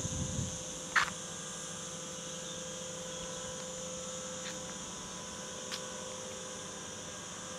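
A steady hum with an even high-pitched drone above it. One sharp click comes about a second in, with a couple of faint ticks later.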